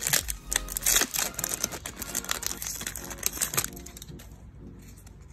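Foil Yu-Gi-Oh booster pack being torn open and crinkled by hand: a rapid crackle of sharp clicks, loudest in the first second, dying down after about four seconds.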